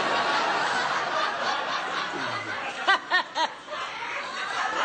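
Studio audience laughing, with one person's laugh standing out about three seconds in as three quick, loud "ha-ha-ha" syllables.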